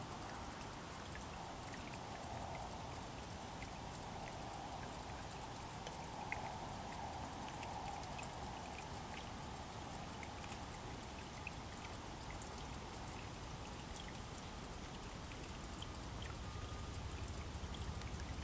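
Water trickling steadily in a shallow stream, with scattered small drips and splashes.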